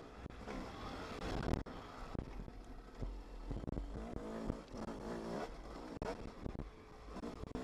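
Dirt bike engine revving up and down as the bike picks its way over a rocky trail, heard from a helmet camera, with a few knocks along the way.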